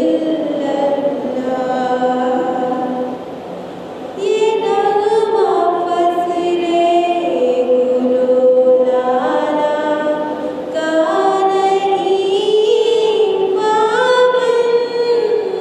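A woman singing an Urdu tarana solo into a microphone, in long held notes with sliding ornaments between them. Her voice drops softer about three seconds in, then rises louder for the rest.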